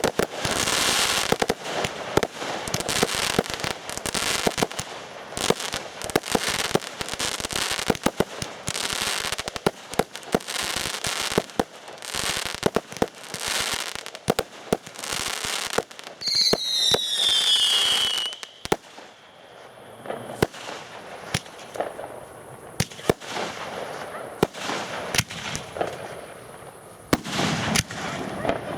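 Consumer fireworks going off: a fast run of sharp bangs and crackling, with several falling whistles about sixteen seconds in, then sparser pops and bangs.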